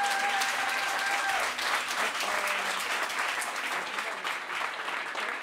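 Audience applauding in a small club, a dense patter of many hands clapping, with a single long high note held over it in the first second or so. The applause tapers off toward the end.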